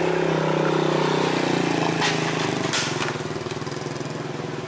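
A car engine running at low speed as the SUV creeps forward, a steady hum with an even fine pulse. About two seconds in, two short sharp crackles cut through it.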